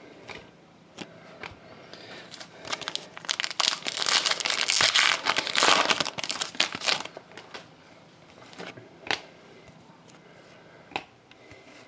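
Foil trading-card pack wrapper crinkling and tearing for a few seconds in the middle, with light clicks of cards being handled before and after.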